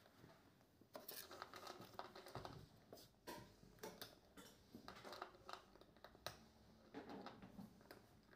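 Flame-point Siamese cat crunching dry food from a plastic bowl: quick, irregular crunches and clicks that start about a second in.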